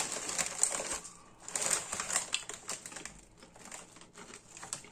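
Crunchy crackling from potato crisps being eaten and handled: two runs of quick sharp crackles in the first three seconds, then only scattered faint ticks.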